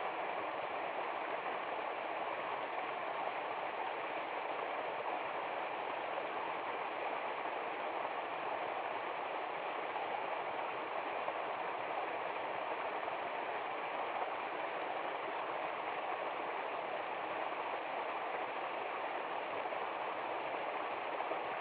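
Waterfall: falling water rushing steadily and evenly, without a break.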